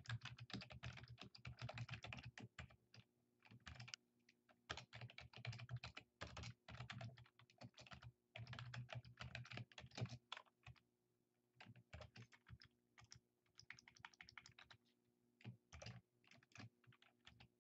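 Faint computer keyboard typing: quick bursts of keystrokes with short pauses between them.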